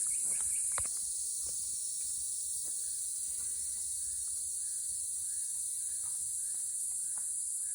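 Steady high-pitched chorus of rainforest insects, with faint scattered crackles beneath it.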